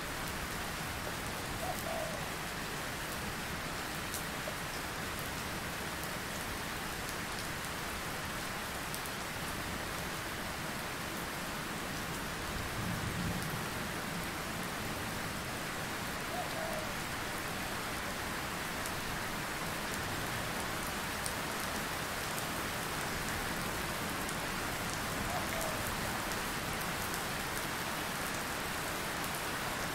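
Steady rain falling, a continuous even hiss, with a brief low rumble about thirteen seconds in.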